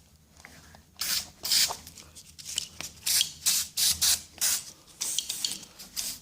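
An aerosol can of WD-40 sprayed in many short hissing bursts, about two a second, starting about a second in. The lubricant is going onto a door frame that creaks where it rests on the floor.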